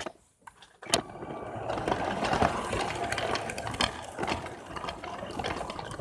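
Motorized Lego train running on plastic track: a small electric motor whirring, with wheels and cars clattering and clicking. It comes in with a sharp click about a second in, after a moment of near quiet.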